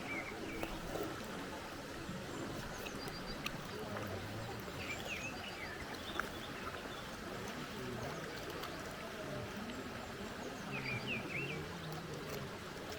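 Steady rush of a mountain river or stream, with a small bird chirping short calls three times: at the start, about five seconds in and about eleven seconds in.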